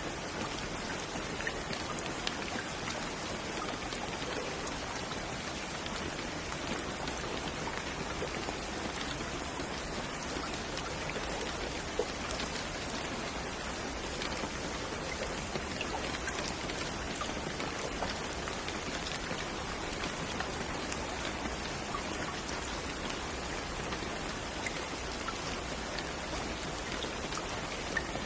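Steady rain falling, with individual drops pattering on a surface.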